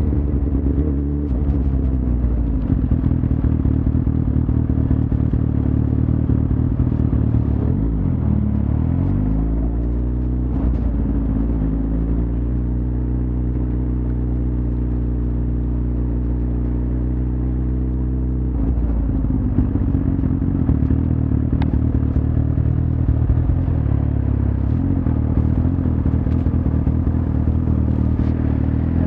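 Suzuki GSX-R1000's inline-four engine running as the bike is ridden. The engine note drops about eight seconds in, climbs back and holds steady for several seconds, then turns rougher and uneven near the twenty-second mark.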